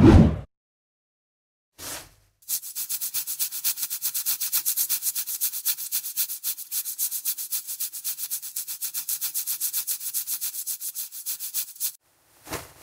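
Emery board nail file rasping back and forth over a toenail in quick, even strokes, several a second, for about nine seconds. A brief low thump comes at the very start, with short single swishes about two seconds in and near the end.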